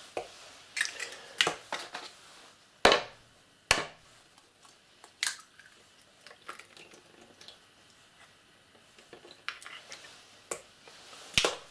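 Eggs being cracked and separated by hand over plastic bowls: a string of sharp cracks and taps of eggshell, the loudest about three seconds in.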